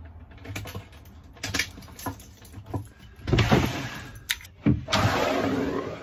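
Keys jangling on a keyring amid knocks and thumps of someone moving and climbing, then a longer rustle of fabric from about five seconds in.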